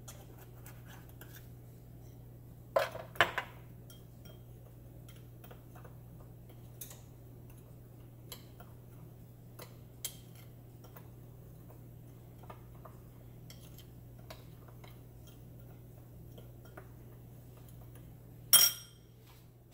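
Metal spoon stirring and scraping dry ground spices in a small glass bowl, with scattered light clinks. There is a quick cluster of louder clinks about three seconds in and one sharp clink near the end.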